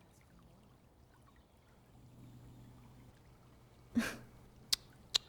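Faint flowing-water nature ambience, with one short whoosh about four seconds in and two sharp clicks near the end.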